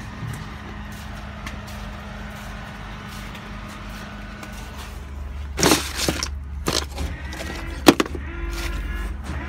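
Steady low idle of a rollback tow truck's engine, growing louder about halfway through. Over it come several loud metal clanks and bangs; the loudest is a single sharp bang a little past the middle.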